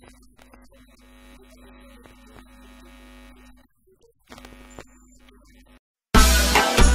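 Faint room tone with a steady electrical hum, dropping out briefly. About six seconds in, loud music with drums starts suddenly.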